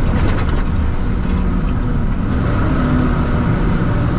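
Truck cab noise while driving: a steady low engine and road rumble, with a brief clatter in the first half second.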